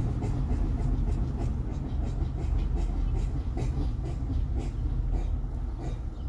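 Mitsubishi Outlander driving, with a steady low rumble and faint repeated ticks. This is the front-wheel noise under light braking that was traced to a warped front wheel hub, not to the pads or discs.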